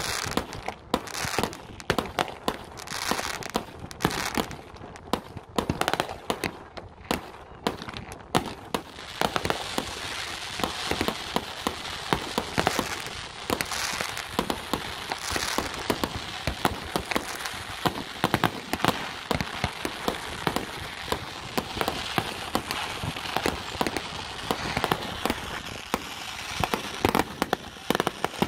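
Many consumer fireworks going off at once: a steady run of bangs and pops, with continuous crackling filling in from about nine seconds in.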